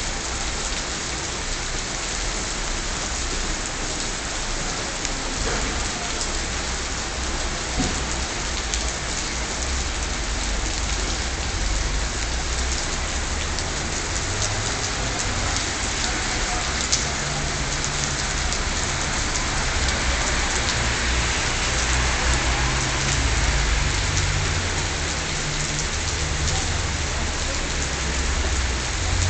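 Heavy rain falling steadily, an even hiss dotted with drop splashes. A low rumble comes and goes in the second half.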